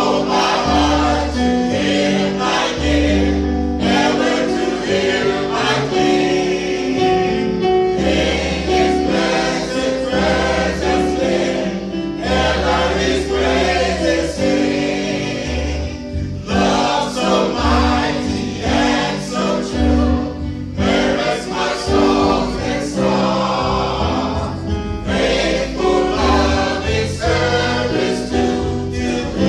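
Choir singing a gospel song, with instrumental backing and held bass notes underneath.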